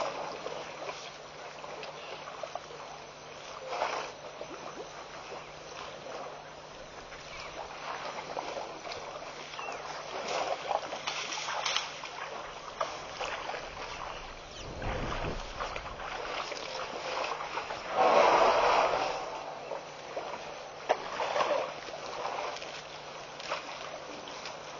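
Young elephant wading and splashing in a shallow waterhole: irregular sloshes and splashes of water, the loudest about eighteen seconds in, with a brief low rumble around the middle.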